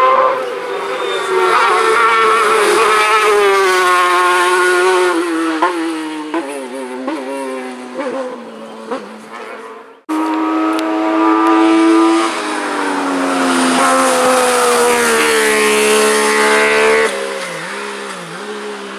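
Hill-climb race car engines revving hard, the pitch climbing and then dropping with each gear change as the cars are driven flat out up the course. A sudden cut about ten seconds in starts a second high-revving pass, with quick rises and falls in pitch near the end.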